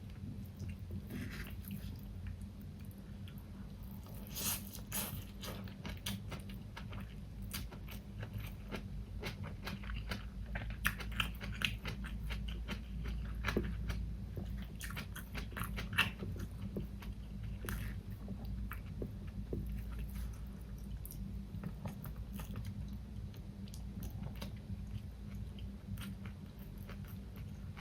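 A person chewing and biting food close to the microphone: wet mouth sounds with many short clicks and snaps, over a steady low hum.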